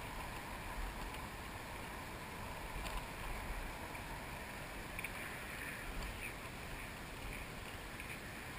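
Faint steady outdoor background noise with a low, uneven rumble of wind on the camera's microphone. A few faint soft clicks come in the second half.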